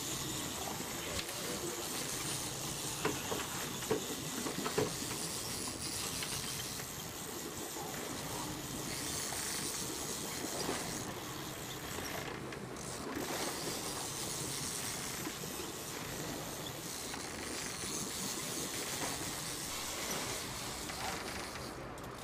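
Steady rushing noise of wind and sea on an open boat deck, with a few brief knocks about three to five seconds in.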